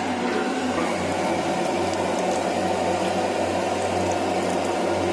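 Steady roar of a gas burner heating a large aluminium pot of mutton biryani masala, with a constant low hum underneath.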